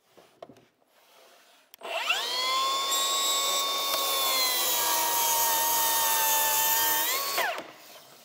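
Milwaukee M18 cordless track saw spinning up about two seconds in and cutting a 45-degree bevel through 3/4-inch plywood. Its whine sags slightly in pitch under the cut and rises briefly near the end, then the trigger is released and the motor winds down.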